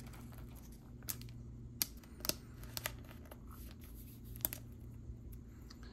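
A handful of scattered soft clicks and faint rustles from trading cards and a plastic card sleeve being handled, over a low steady hum.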